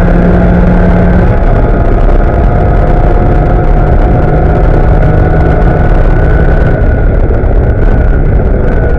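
Porsche Cayman S flat-six engine, heard from inside the race car's cabin, running hard at full throttle at high speed with wind and tyre noise. About seven seconds in, the note drops as the driver lifts off and brakes.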